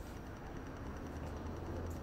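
Steady low rumble of city background noise, with no firework bangs.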